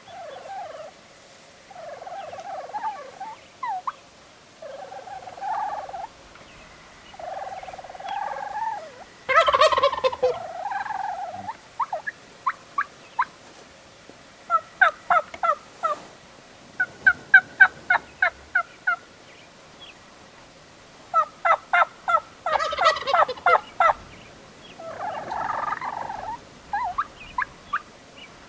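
Gould's wild turkeys calling: two loud gobbles, about thirteen seconds apart, with softer low calls before and between them and runs of short, quick, evenly spaced notes in the middle.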